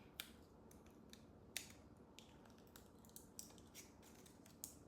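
Faint, scattered small clicks and taps of a small flashlight being handled while its battery compartment is worked open.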